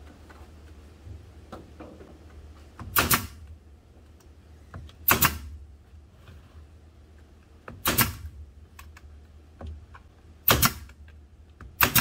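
Nails being tacked into an HDO plywood feeder rim: five sharp cracks about two to three seconds apart, each a quick double strike, with light handling clicks between.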